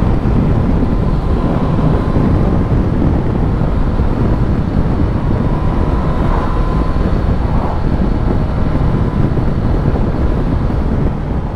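Steady, heavy wind rush and buffeting on a helmet-mounted microphone at road speed on a Suzuki GSX-S1000GT motorcycle, with the bike's running engine underneath. The microphone sits in a dead cat inside the helmet cheek pad pointing downwards, which lets in plenty of wind noise.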